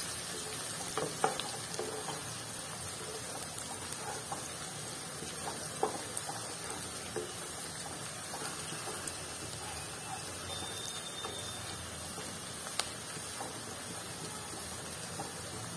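Sliced onions and crushed garlic sizzling steadily in hot mustard oil in a pan, stirred with a wooden spatula that knocks against the pan a few times.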